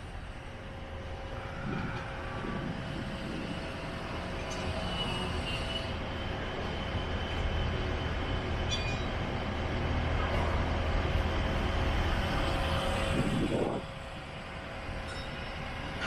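A passing train's steady low rumble, growing over several seconds and dropping off abruptly near the end.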